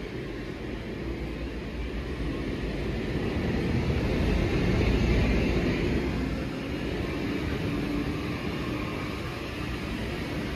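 Bulleid West Country class steam locomotive standing at the platform in steam, giving a steady rushing sound that swells about four seconds in and eases again. It sounds as if it is about to depart, but it is only standing with steam up.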